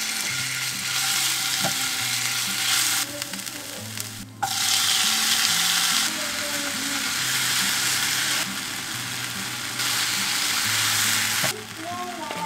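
Chopped tomatoes sizzling in hot oil in a non-stick frying pan while being stirred with a silicone spatula. The sizzle drops away briefly about four seconds in.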